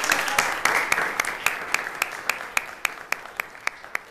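Audience applauding. Dense clapping at first thins out after about a second and a half into a few steady claps, about four a second.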